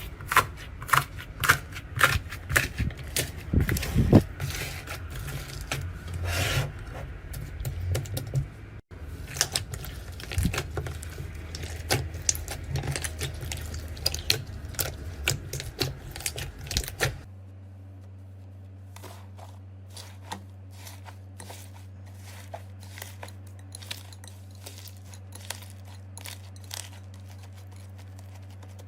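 Slime being squeezed and worked by hand, giving dense, crisp clicking and crackling. About two-thirds of the way through the clicks thin out and a steady low hum sits underneath.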